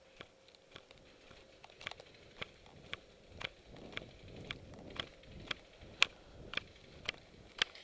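Footsteps of a person walking briskly over sandy, gritty concrete, about two steps a second. Each step comes with a sharp click, the loudest about six seconds in.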